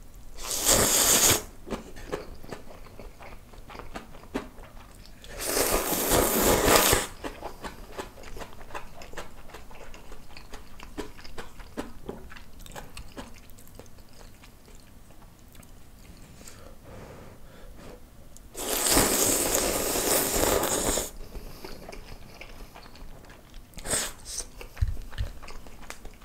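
A person slurping instant ramyeon noodles in loud, noisy pulls: one about half a second in, one around six seconds and a longer one around nineteen seconds. In between come chewing and small wet mouth clicks.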